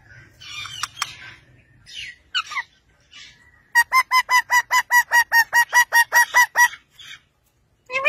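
Parakeet calling: a few scratchy chirps and short falling squeaks, then from about halfway a fast, even run of short two-pitched squawks, about five a second for some three seconds.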